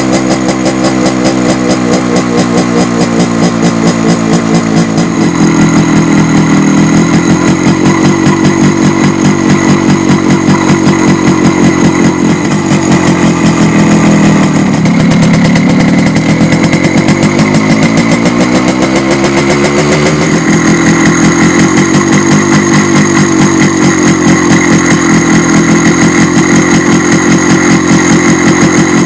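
MZ ETZ 150's single-cylinder two-stroke engine idling steadily. Its speed sags and then climbs again through the middle.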